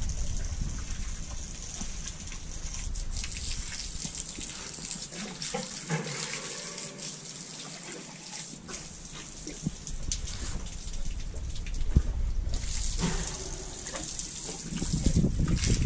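Water from a garden hose running and splashing onto a concrete slab, a steady hiss, with a few sharp knocks; the loudest comes about twelve seconds in.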